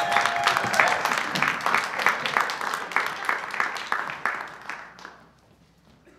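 Audience and performers clapping together in a steady rhythm, about three claps a second, fading out about five seconds in. The tail of the music stops just under a second in.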